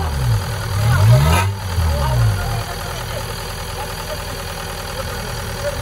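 Off-road 4x4's engine revved in several quick blips, pitch rising and falling, during the first couple of seconds, then settling to a steady idle.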